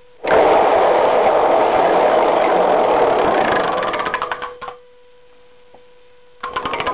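Homemade cardboard Wheel of Fortune wheel spinning. Its rim pegs rattle rapidly, then slow into separate clicks and stop about four and a half seconds in. A second short run of clicks comes near the end, over a faint steady hum.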